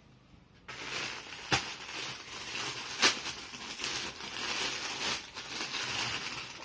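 Clear plastic packaging crinkling and rustling as folded suits in polythene bags are handled, starting just under a second in, with two sharper crackles.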